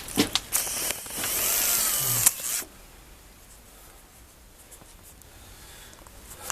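A gopher snake hissing loudly for about two seconds, a defensive warning at being disturbed; the hiss cuts off suddenly, with a few clicks just before it starts.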